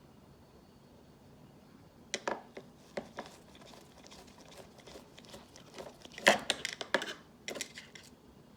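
Light clicks and clatter of a Torx screwdriver and small screws being handled while the housing screws of a 2010 27-inch iMac are taken out. The knocks come in scattered groups, the loudest run about six seconds in.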